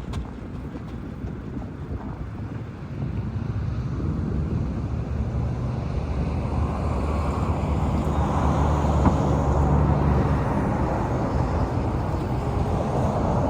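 Wind rushing over the microphone with a low engine-like hum from a vehicle, building up over several seconds and easing slightly near the end.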